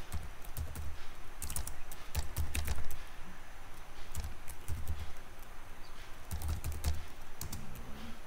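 Typing on a computer keyboard: keystrokes clicking in irregular clusters, with dull thuds beneath them.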